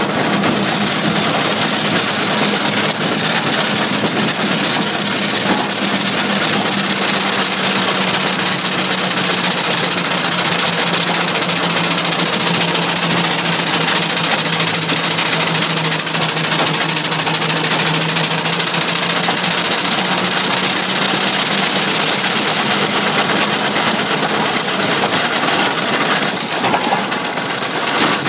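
6-inch scale McLaren steam traction engine running along a road: a steady, busy mechanical clatter from its motion and gearing over a constant hum whose pitch dips slightly midway and recovers.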